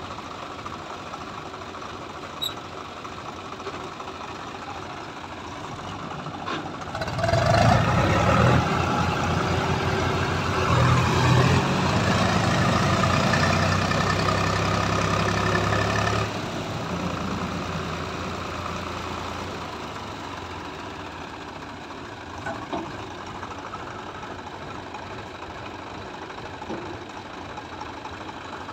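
Swaraj tractor's diesel engine running, then revved hard about seven seconds in with a rapid low chugging as the tractor strains to pull its trailer out of river water, rear wheel churning the water. The revving cuts off abruptly after about nine seconds and the engine settles back to a steady idle.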